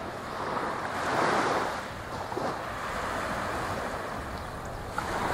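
Ocean surf washing onto the shore, swelling about a second in and then easing, with wind on the microphone.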